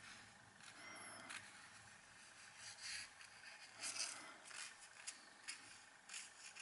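Faint scratching and dabbing of an ink-soaked rope end, held in a wooden clothes peg, dragged across paper, in short irregular strokes with a few light clicks and taps.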